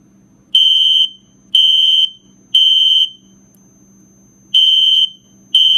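Smoke alarm sounding its high-pitched alarm beep in the temporal-three evacuation pattern: three half-second beeps a second apart, a pause, then two more near the end.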